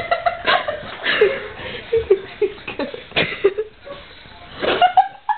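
People laughing and giggling in short broken bursts, with a few sharp knocks in between.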